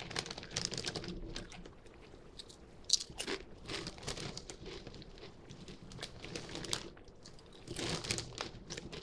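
Mouth chewing a thick, ridged potato chip: a run of crisp crunches, with a sharp one about three seconds in and a louder cluster near the end.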